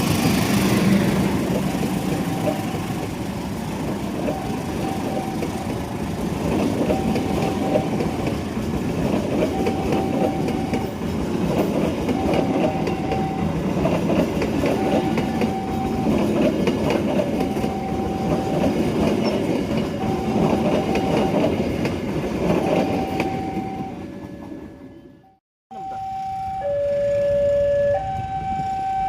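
A train passing, its wheels clattering on the rails, with a short tone repeating about every two and a half seconds over the noise. The train noise fades out about 24 seconds in. After a brief silence, a two-tone signal starts, switching back and forth between a higher and a lower pitch.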